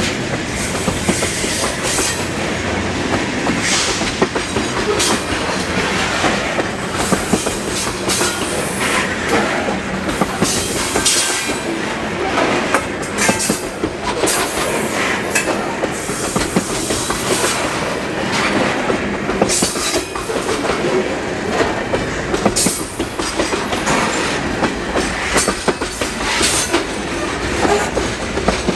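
Loaded freight cars of a long train rolling past at close range. Their wheels clack steadily over the rail joints, with brief high-pitched screeches here and there.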